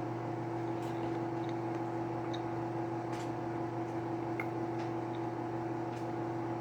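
Microwave oven running with a steady hum, a few faint clicks over it.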